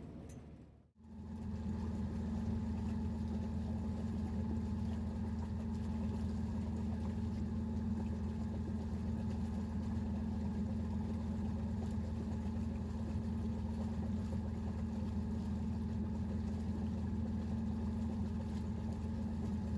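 Boat engine running steadily at low speed, a constant low hum that comes in about a second in after a brief gap.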